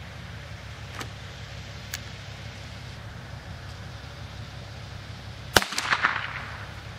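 A single .22 LR shot from a single-shot 12-gauge shotgun fitted with an 8-inch rifled .22 LR adapter: one sharp crack about five and a half seconds in, with a brief echoing tail. Two light clicks come before it, about one and two seconds in.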